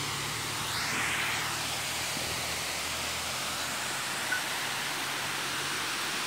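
Water pouring from a dam's crest gates and rushing down its concrete spillway: a steady rush.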